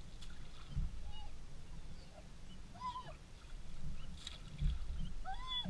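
A dog whining eagerly: short high whines that rise and fall in pitch, the clearest about three seconds in and again near the end, over a low rumble.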